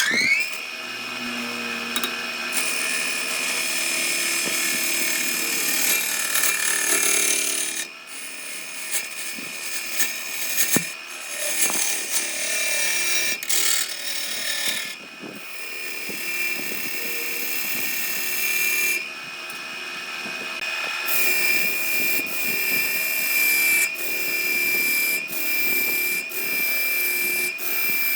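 Electric power tool motor running at a steady high whine while cutting wood, with rough scraping noise coming and going. Near the end the whine dips briefly several times, about once a second, as the tool is loaded.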